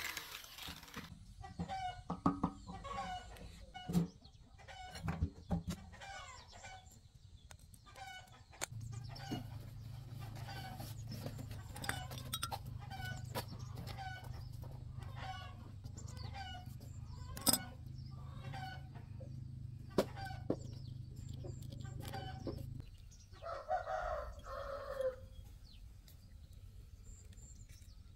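Chickens clucking repeatedly in short calls, with a louder two-part call near the end. A low steady hum runs under them through the middle stretch.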